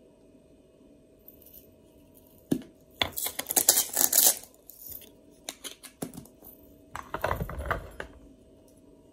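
Kitchen items being handled close to the microphone: a sharp knock, then bursts of clattering, clicking and rustling as containers such as a glass jar and a plastic lid are picked up and set down.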